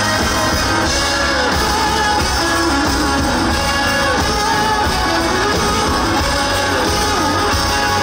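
Rock music played by a band, with guitar over a steady, heavy low end and a melody line weaving through it.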